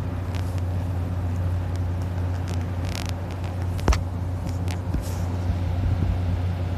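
A man snoring in deep sleep: a steady low rumble, with a brief sharp click about four seconds in.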